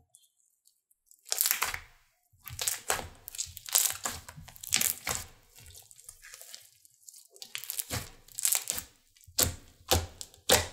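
Thick fluffy slime being stretched, folded and poked by fingers, giving a run of sharp pops as trapped air pockets burst, starting about a second in and coming roughly one every half second to second.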